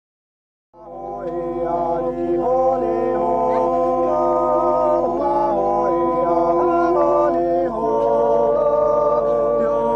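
A group of Appenzell Silvesterchläuse singing a Zäuerli, a wordless natural yodel, a cappella. Several voices hold sustained chords and shift pitch together in slides. It starts after a moment of silence.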